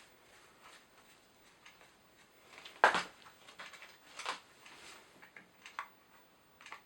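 Small chainsaw parts and tools handled on a workbench: scattered light clicks and knocks, the loudest a sharp clack about three seconds in and another about a second later, as the oil pump cover is fitted.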